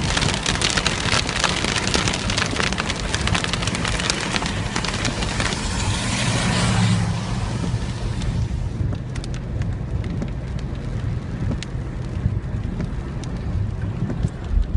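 Heavy rain falling, a dense patter of drops that thins to scattered drips about seven seconds in, over a low steady rumble.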